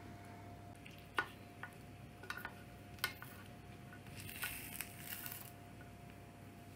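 Plastic slotted spatula clicking against a glass baking dish several times, then a short squelchy scrape as a cheese-topped baked chicken breast is worked loose and lifted out of its juices.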